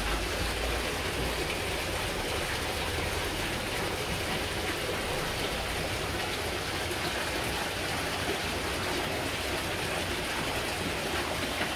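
Steady rushing noise with a low rumble underneath, even in level throughout.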